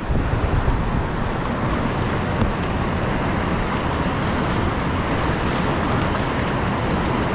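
Steady rush of whitewater rapids on a river running high, heard from a kayak on the water.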